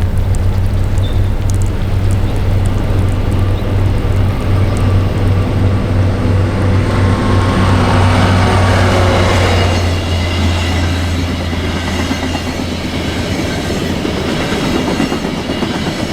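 A train passing close by, its noise building to a peak about eight to ten seconds in, over a steady low hum that drops away at about the same point.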